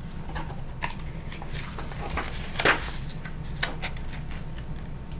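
A large hardcover picture book being handled and its pages turned: a few short paper rustles and soft taps, the loudest a little past the middle, over a low steady hum.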